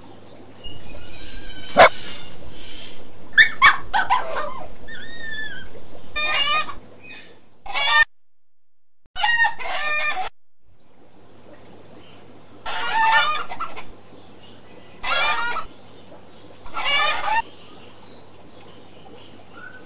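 A string of separate chicken-like clucking and crowing calls, each lasting about half a second to a second and a half, with a sharp click about two seconds in. A steady low hum runs under most of it.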